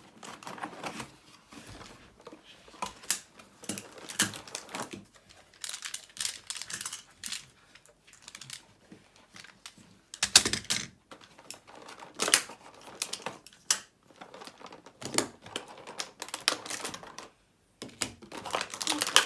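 Plastic magnetic building tiles clicking and clattering as they are handled and snapped together, in irregular clicks with a louder clack about ten seconds in.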